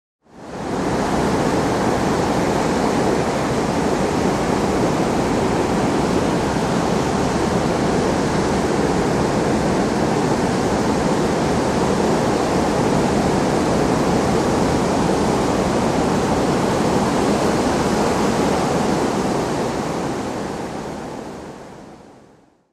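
Ocean surf on the beach: a steady, even rush of breaking waves that fades in at the start and fades out over the last two seconds.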